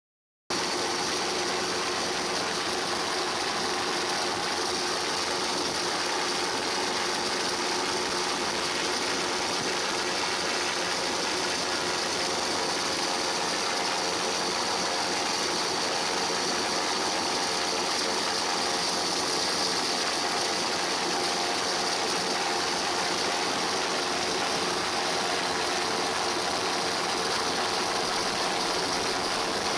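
A steady engine drone with hiss. It starts suddenly half a second in and holds unchanged.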